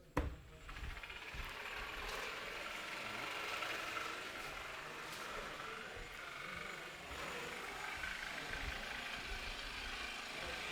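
Electric jigsaw running steadily, cutting through a laminate countertop with a down-cut blade.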